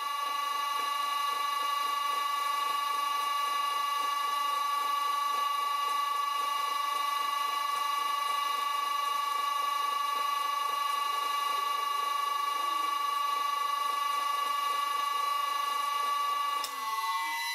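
Vintage Karger lathe running under its VFD-driven motor while a centre drill cuts, with a steady high electrical whine of several pitches from the VFD and motor. Near the end the whine slides down in pitch and fades as the lathe is stopped.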